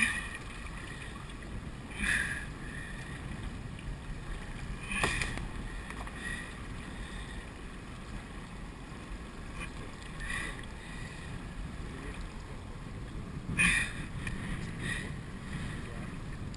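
Steady low noise of a small boat on open water, broken by about five brief sharper sounds spread through it, the strongest near the end.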